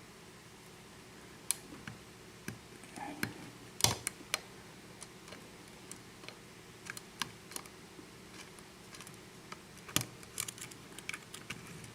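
Light, irregular metal clicks and scrapes of a lock pick working the pin stack of a six-pin Russwin pin-tumbler lock, with sharper clicks about four seconds in and again about ten seconds in.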